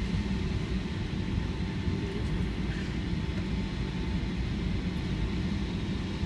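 Cabin noise of a Boeing 757 taxiing after landing: a steady low rumble from the idling engines and the rolling airframe, with a faint steady whine above it.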